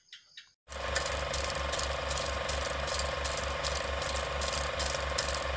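Film-projector sound effect: a steady mechanical whirring clatter with an even beat of about four a second, starting just under a second in.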